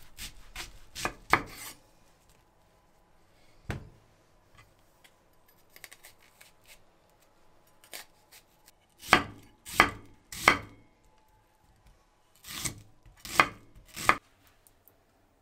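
Kitchen knife cutting an onion on a wooden cutting board, each stroke ending in a knock of the blade on the wood. A few light cuts at first, then louder, evenly paced strokes in two groups of three near the end.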